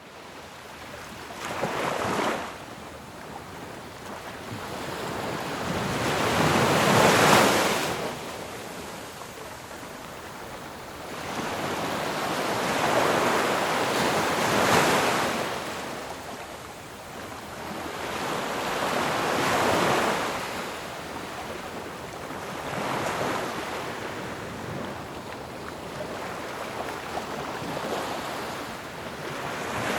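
Ocean surf: waves breaking and washing in, swelling and fading every few seconds, the loudest surge about seven seconds in.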